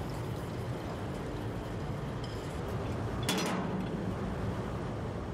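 Steady hum and bustle of a wool-dyeing workshop, with one sharp clink about three seconds in.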